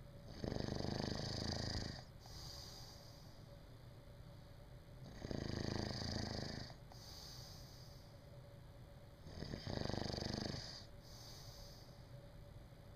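A sleeping person snoring: three long snores about four seconds apart, each followed by a shorter, softer breath.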